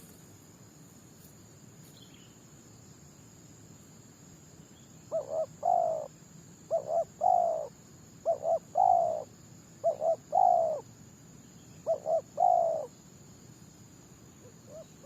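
Spotted dove cooing: about five seconds in it starts a run of five phrases, each two short coos followed by a longer, falling coo, repeated about every second and a half.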